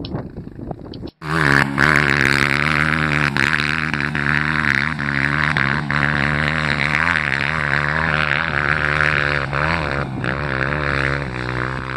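Dirt bike engine held at high revs on a steep, loose hill climb, its rear wheel spinning in the dust as the bike fails to get up the slope. It is a loud, steady drone that wavers slightly in pitch, and it cuts in abruptly about a second in.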